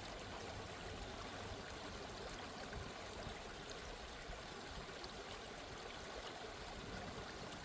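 Steady, faint running water, like a stream or trickle, flowing evenly.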